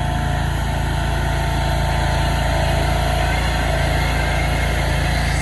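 Engine of a remote-control laser screed running steadily at a constant speed, with an even low hum throughout.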